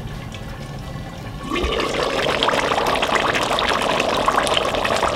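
A pot of thick red chile pork stew (asado de puerco) at a rolling boil, bubbling and popping. About a second and a half in, the sound grows suddenly louder and more crackly as the lid comes off the pot.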